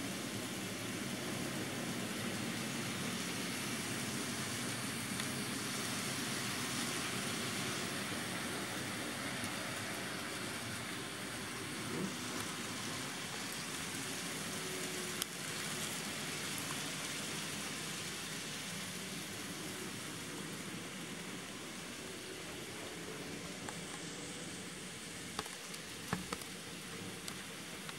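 Steady running noise of model trains on a layout, with a few faint clicks.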